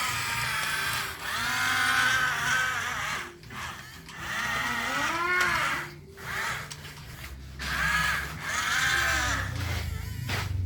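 Small electric motors of a radio-controlled excavator and dump truck whining in bursts of a second or two, the pitch rising and falling as they speed up and slow down.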